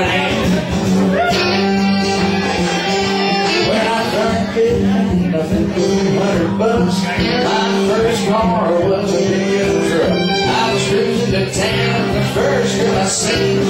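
Small country band playing live, with acoustic guitar strumming, electric guitar, drums and a singing voice.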